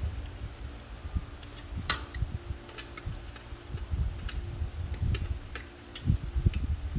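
Light metallic clicks and ticks at irregular intervals, about a dozen, from 12 mm bolts and hand tools being handled on a transmission cover plate, over a low rumble and a faint steady hum.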